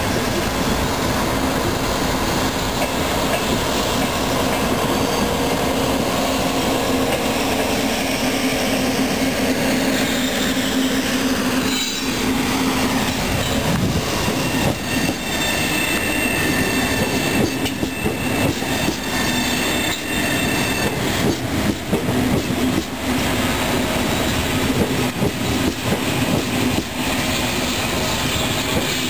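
High-speed electric train rolling slowly into a station platform: a steady running hum, and a whine falling in pitch about ten to twelve seconds in. Then the wheels squeal on the station track for several seconds while they click over rail joints and points as the cars pass close by.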